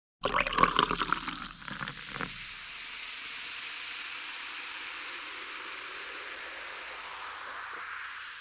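Intro sound effect for a title card: a quick run of crackling, splashy clicks for about two seconds, then a steady hiss that begins to fade near the end.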